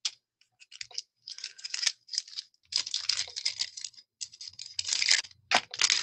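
Clear plastic craft packaging crinkling and rustling as it is handled, in irregular bursts, with a louder sharp crackle near the end.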